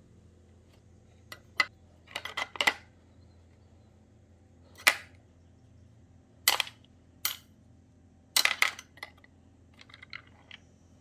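Small steel and brass hand plane parts being set and dropped one after another into a clear plastic tub: a string of sharp clinks and short clatters of metal on plastic, a second or two apart, with a few lighter ticks near the end.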